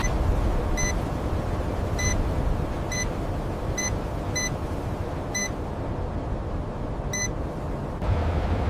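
Seven short, identical high electronic beeps at irregular intervals, over a steady low rumble of factory machinery.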